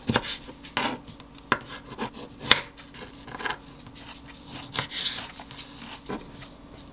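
Kitchen knife cutting cherry tomatoes into quarters on a wooden cutting board: irregular knocks of the blade meeting the board, with softer slicing and rubbing between them, thinning out after about five seconds.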